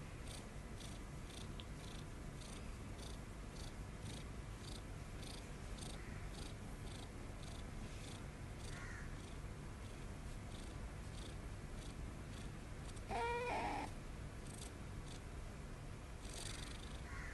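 Tabby kitten purring steadily while being stroked, with faint pulses about twice a second. About thirteen seconds in, it gives one short meow.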